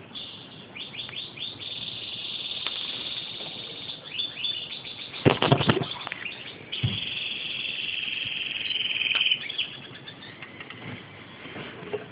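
European goldfinch singing: a fast twittering run of chirps, then a steadier trill for a few seconds past the middle. About five seconds in comes a loud, brief flurry of wing flaps.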